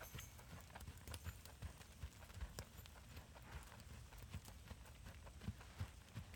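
Hoofbeats of a ridden horse on soft sand footing: a faint, steady run of soft thuds.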